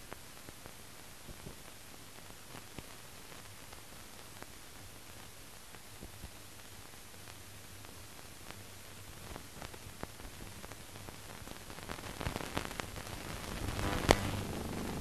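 Steady hiss and scattered crackle of an old optical film soundtrack, growing louder in the last few seconds, with a sharp click about fourteen seconds in.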